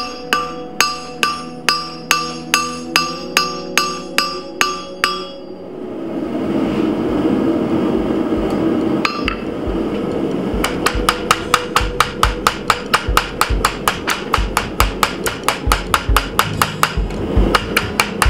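Blacksmith's hammer striking steel on an anvil, about two and a half ringing blows a second, stopping about five seconds in. A steady rushing noise follows for about five seconds. Then comes a fast run of hammer blows, around five a second, on a red-hot bar bent over a bending fork held in a vise.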